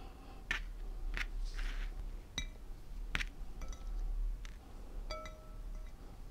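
Hands handling stiff organza ribbon petals: soft rustling with scattered light clicks and a few small clinks, some ringing briefly.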